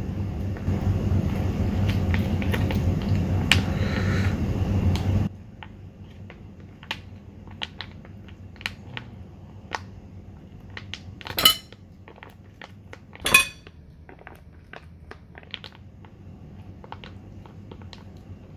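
Foil sachet crinkling as it is torn open and shaken out over a bowl of noodles, with small crisp clicks as the topping falls and two louder rustles in the middle. A loud steady rushing noise covers the first five seconds and then cuts off suddenly.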